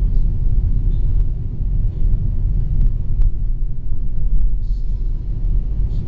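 Car driving on a gravel road, heard from inside the cabin: a steady low rumble of tyres and engine, with a few brief sharp ticks.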